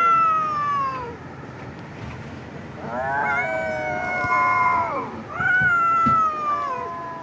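A kitten meowing: three long meows, the first already under way, each falling in pitch at its end.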